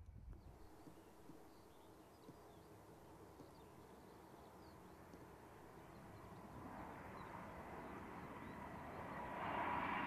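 Faint birdsong in quiet countryside. From about two-thirds of the way through, the sound of a Class 91 electric locomotive hauling an InterCity 225 passenger train grows steadily louder as the train approaches, with a thin steady whine near the end.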